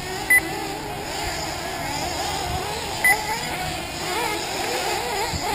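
Several 1/8-scale nitro RC buggy engines buzzing around the track, their pitch rising and falling as they rev and back off. Two short, loud beeps sound about three seconds apart.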